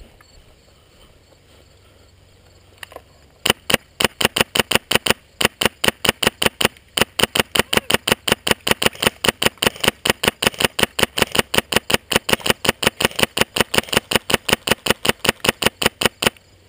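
Polarstar air-powered Magpul M4 airsoft rifle firing one shot after another at about four to five shots a second, kept up for over twelve seconds with a couple of brief pauses.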